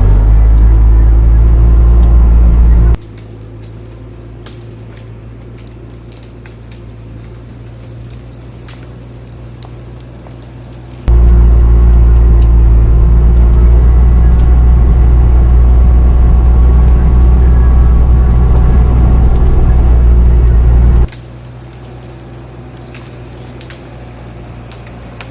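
Bobcat T650 compact track loader's turbo-diesel engine running loud and steady under work. It drops abruptly to a much quieter, thinner sound twice, about three seconds in and again near the end, and comes back full about eleven seconds in.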